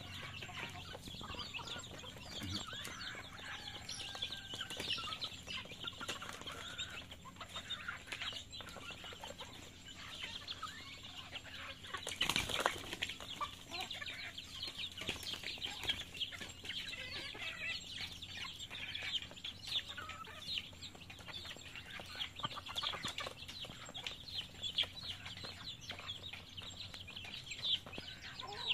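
A flock of chickens feeding on scattered grain: many short pecking ticks and soft clucks. A brief loud flurry comes about twelve seconds in.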